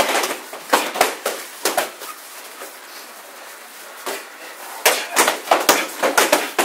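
Kicks and punches smacking into padded kick shields: many sharp hits in quick flurries, one at the start and another from about five seconds in.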